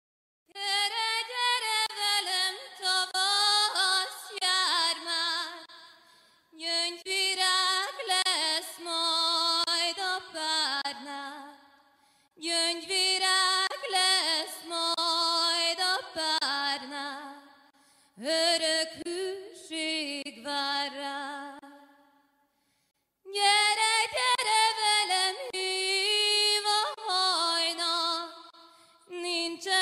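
A woman singing unaccompanied in long, drawn-out phrases of about five seconds, each fading out into a short silence before the next.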